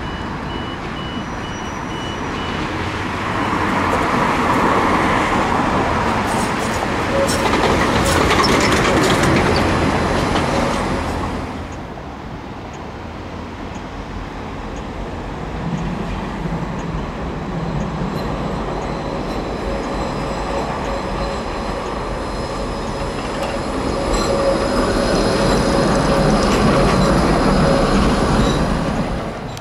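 Tram running along the track, rumbling and rattling, with two louder stretches as it gathers speed. Near the middle there is a quick run of clicks, and faint thin squealing tones from the wheels and running gear come in later.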